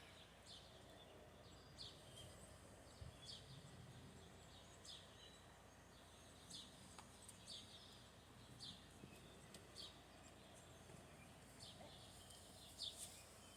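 Faint bird chirps, many short quick falling notes repeated every second or so, over a low background hush.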